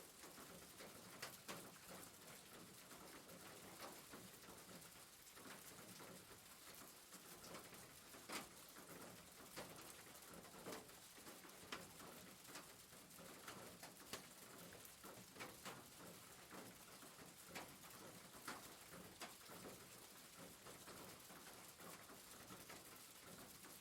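Faint, steady rain on a roof: an even hiss with scattered sharp ticks of single drops striking.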